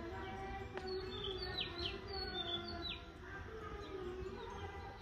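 Small birds chirping in short, quick downward-sweeping calls, most of them bunched in the first half, over a faint steady hum.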